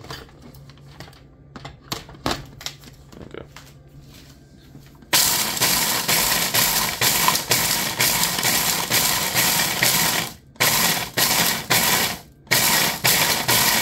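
Ninja food processor grinding oven-baked, brittle eggshells into crumbs: after a few light clicks as the motor head is seated on the jar, the motor and blade start about five seconds in with a loud, dense rattle of shell against the jar, then are stopped and restarted twice in short pulses.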